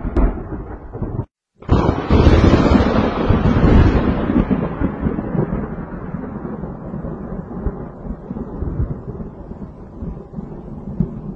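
Thunder: a rumble that cuts off about a second in, then a loud thunderclap that rolls on and slowly dies away.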